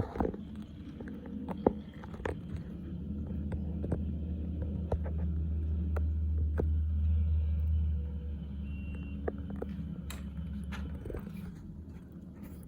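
Low engine rumble from heavy machinery that swells to its loudest about six to eight seconds in and then fades, with scattered light clicks and knocks.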